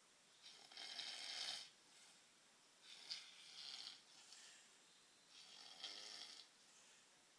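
Faint, steady snoring: three drawn-out snoring breaths, each about a second long, coming about two and a half seconds apart.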